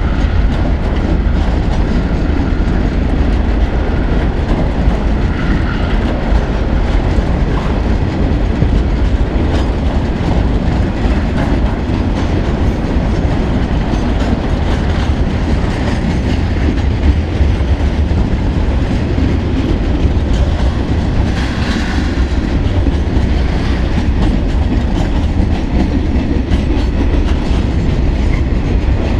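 Freight train wagons rolling past at speed: boxcars, tank containers and container flats, their wheels rumbling steadily and clattering over the rail joints.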